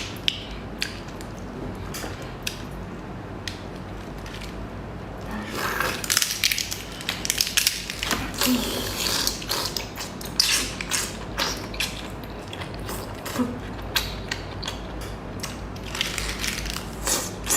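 Close-miked eating of bamboo razor clams: a dense run of short, wet mouth clicks and smacks from chewing, with longer sucking slurps about six and nine seconds in.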